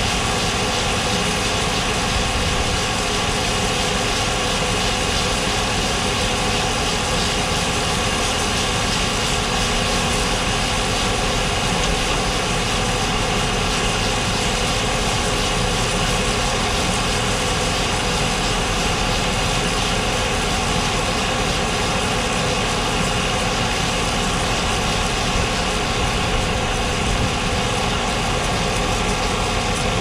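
John Deere 4040 tractor's six-cylinder diesel engine running steadily, driving a grain auger that carries shelled corn from a dump truck's hopper up into a grain bin.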